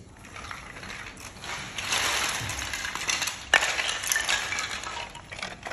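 Dry agarwood chips clattering and rustling as a hand rummages through a heap of them, with one sharper click about three and a half seconds in.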